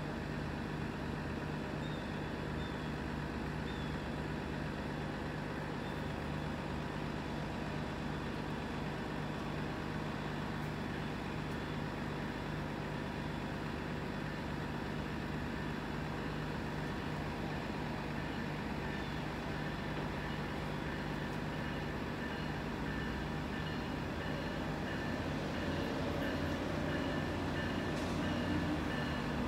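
Steady low hum of a distant approaching Amtrak Northeast Regional train, its rumble growing slightly louder over the last few seconds as it nears.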